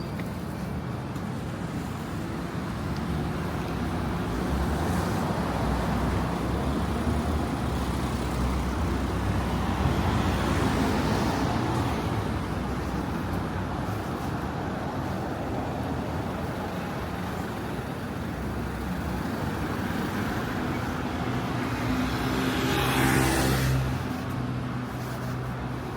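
City street traffic: motor vehicles running past with a steady low engine hum, growing louder about ten seconds in and again near the end as a vehicle passes close.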